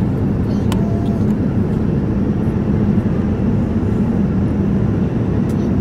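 Steady cabin noise inside a Boeing 787 Dreamliner in flight: the low rumble of airflow and engines. A faint click comes about a second in.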